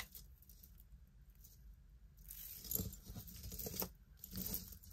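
Soft clinking and rattling of a beaded necklace with a heavy metal pendant being handled, in a few short clusters from about two seconds in.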